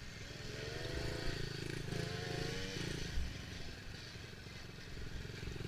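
Dirt bike engine running, its pitch wavering twice.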